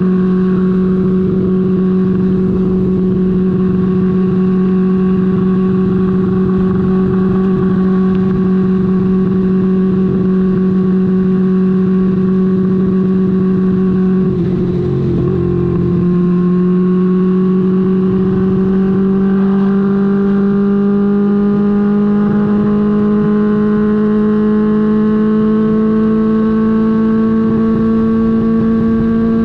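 Honda CB550's air-cooled inline-four engine running under way at a steady pitch, dipping briefly about halfway through, then climbing slowly as the bike gathers speed.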